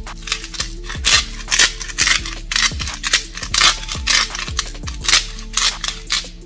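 Salt grinder twisted by hand, coarse Himalayan pink salt crystals crunching out in short rasps about three times a second.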